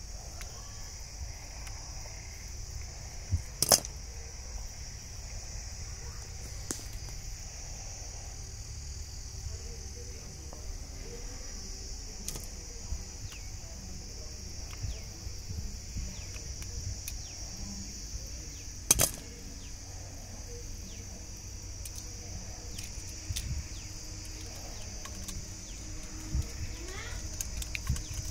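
Combination pliers cutting and stripping copper house wire: two sharp snaps, one about four seconds in and another around nineteen seconds, with fainter clicks of wire handling between. Under it, insects keep up a steady high-pitched buzz.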